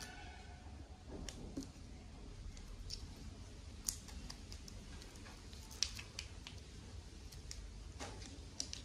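Faint handling noises: scattered light clicks and ticks as M-Seal epoxy putty is handled and worked by hand.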